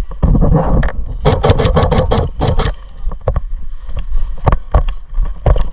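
Airsoft gun firing a rapid string of about eight sharp shots, roughly six a second, starting about a second in, followed by a few scattered single shots. A low rumble of wind and handling on the microphone runs underneath.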